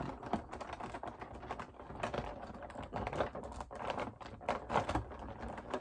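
Clear plastic action-figure packaging tray being handled and worked at: a dense run of irregular clicks and crackles from the stiff plastic.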